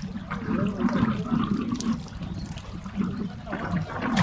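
Water sloshing and splashing in an irregular, continuous churn, as from wading and working in shallow water.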